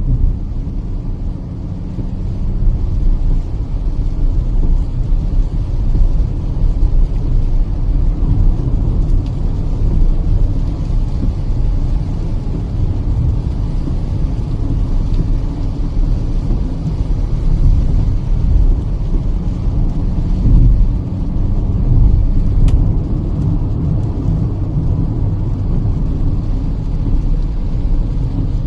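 Kia Seltos at highway speed: a steady low rumble of tyres and road with the petrol engine running underneath, heard from inside the car.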